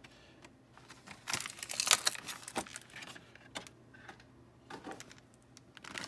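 Thin clear plastic blister insert crinkling and crackling as it is handled and flexed, loudest a little over a second in, followed by a few sharp clicks of the plastic.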